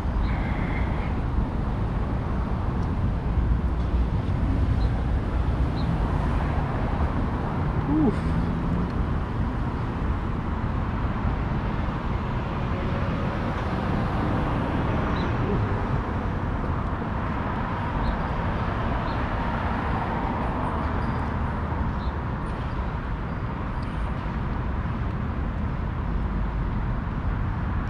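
Steady road-traffic noise from cars on a multi-lane city street, an even rumble with no single loud event.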